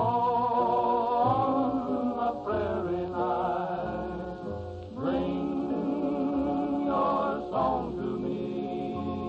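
Western vocal group singing in close harmony, holding long chords with vibrato that change every second or two, on an old radio transcription with dull, limited treble.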